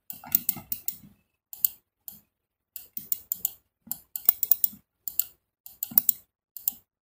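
Clicking of a computer mouse and keyboard, in short irregular clusters of a few quick clicks each.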